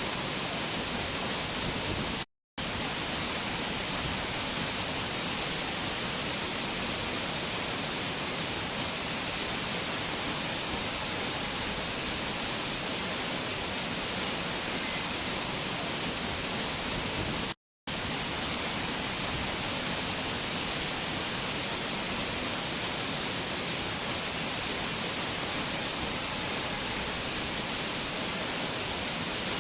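Water pouring down a small waterfall, a steady dense rushing with no change in level. It cuts out to silence twice for a split second, about two seconds in and about eighteen seconds in.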